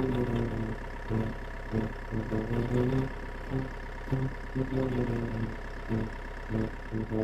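Small motor running, with a steady high whine over an uneven, pulsing lower hum.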